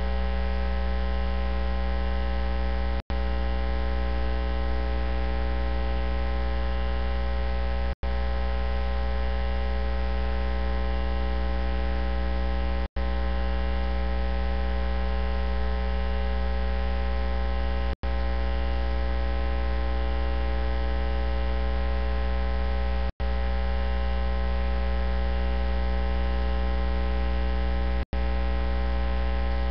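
Loud, steady electrical hum made of many fixed tones, heaviest in the low bass, with no speech. It is broken by a short dropout to silence about every five seconds.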